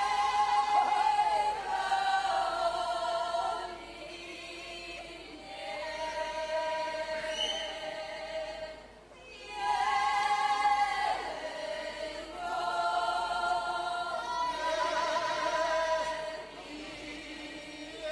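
Podhale highland folk ensemble of young men and women singing together in a group, in short phrases with brief pauses between them.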